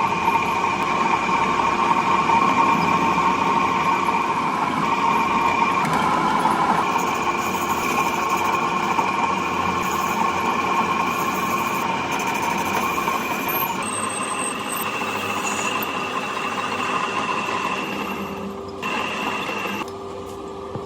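A workshop machine running steadily with a whine that changes pitch slightly about six seconds in and again near fourteen seconds, then eases off near the end.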